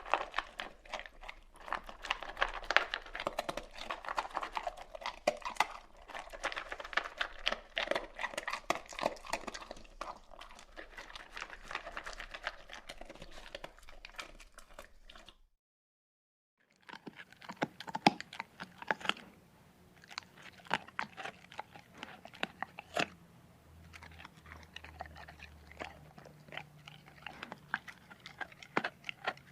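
Dog eating, with irregular crunching and chewing of food, dense at first. The sound drops out completely for about a second about halfway, then returns as sparser crunches.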